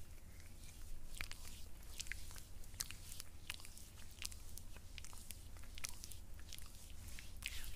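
Hands rubbing and squeezing a grainy body scrub into skin on an arm and shoulder, making a soft wet rubbing with irregular, crisp crackling clicks.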